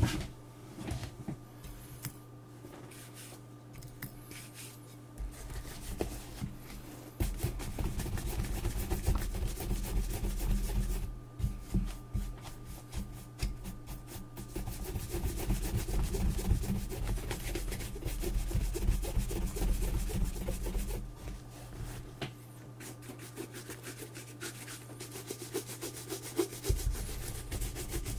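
Leather boot being buffed with quick rubbing strokes, in bouts of vigorous rubbing with lighter stretches between, over a steady low hum.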